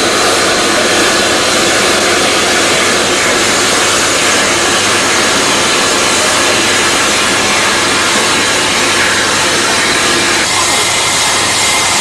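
Loud, steady hiss of steam escaping from a steam locomotive, with a faint tone in it that changes pitch slightly near the end.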